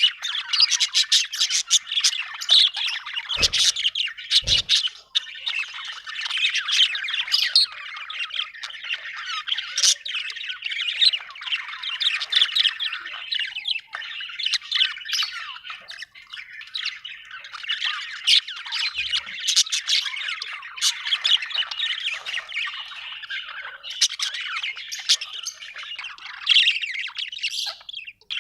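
Budgerigar chirping and chattering continuously in quick, rapid squawks and tweets, the sound of a happy budgie. Two dull thumps come a few seconds in.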